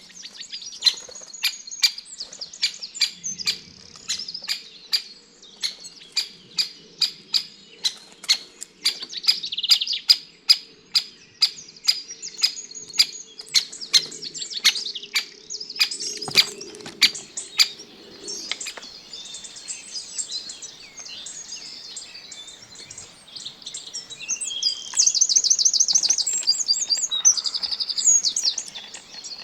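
Many songbirds chirping and twittering, with a fast trill near the end. Through the first two-thirds, a squirrel's nibbling gives a run of sharp clicks about twice a second.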